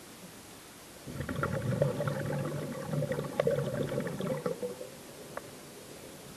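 Air bubbles gurgling and crackling as a man breathes out underwater at the end of a breath-hold, heard through a submerged camera's microphone. The bubbling starts about a second in and lasts about four seconds.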